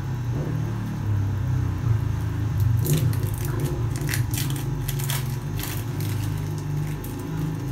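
Plastic wrapper of an individually wrapped cheese slice crinkling as it is peeled open, with a run of sharp crackles in the middle, over a low hum.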